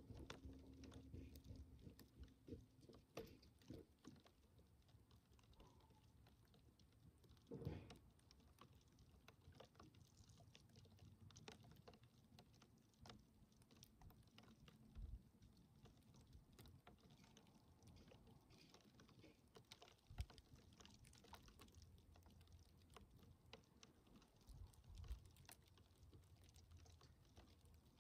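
Near silence, broken by faint scattered clicks and a few brief soft thumps several seconds apart.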